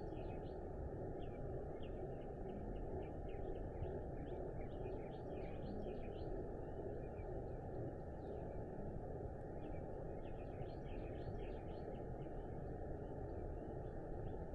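Small birds chirping in short clustered bursts of high notes, over a steady low rushing background noise.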